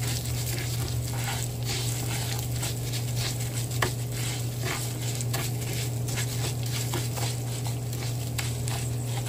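Uncooked rice sizzling in oil in a nonstick frying pan, stirred with a wooden spoon, the grains scraping and clicking against the pan: the rice is toasting and browning before the water goes in. A steady low hum runs underneath.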